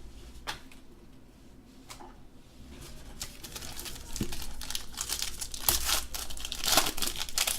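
Foil trading-card pack wrapper crinkling and tearing open by hand. A few light clicks come first, and the crinkling starts about three seconds in and grows louder.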